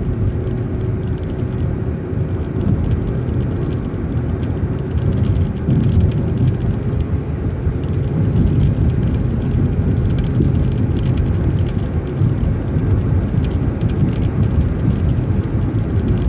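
City transit bus driving, heard from inside the bus: steady engine and road rumble with a whine that rises slightly in pitch about six seconds in, and scattered light rattling clicks.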